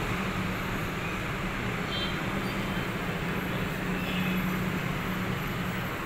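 Steady background noise with a continuous low hum, like distant traffic. Faint, brief high tones sound about two seconds and four seconds in.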